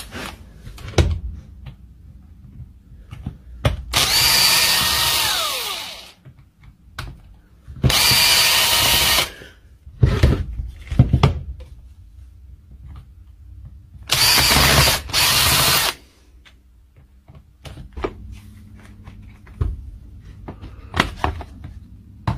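A cordless power drill/driver running in four short bursts of a second or two, the first winding down with a falling whine, with clicks and knocks of parts being handled between them: screws coming out as a tool housing is taken apart.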